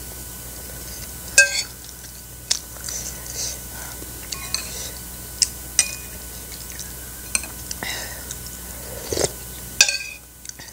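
A metal spoon clinks and scrapes against a ceramic soup bowl and plate, about half a dozen sharp clinks, the loudest with a short ring. Soft chewing sounds come between the clinks.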